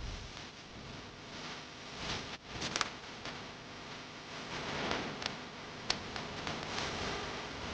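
Soft rustling and handling noise with a few sharp clicks, about three, five and six seconds in.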